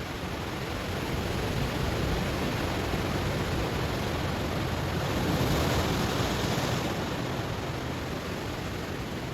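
Sea waves breaking on a stony shore, a steady wash of surf with one wave swelling to its loudest a little past halfway and then easing off.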